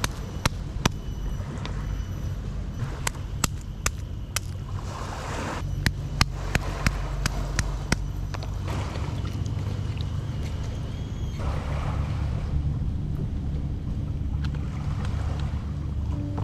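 A stone pounding peeled garlic cloves against a rock, making a dozen or so sharp taps in short runs over the first half, over a steady low rumble of wind and sea water.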